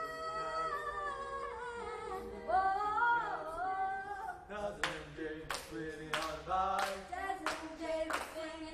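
Small a cappella vocal group singing: a held chord, then a sliding phrase, then from about halfway singing over rhythmic hand claps, about two a second.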